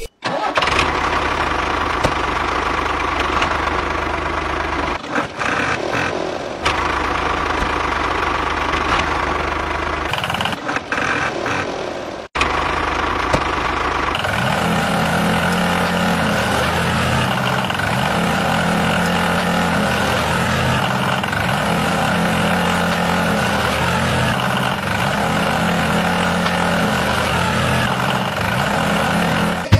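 Tractor engine running steadily, briefly cut off about twelve seconds in. In the second half its low note repeatedly steps up and down, as if revving and easing.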